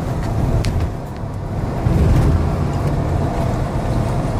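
Road and engine noise heard inside the cabin of a moving car: a steady low rumble.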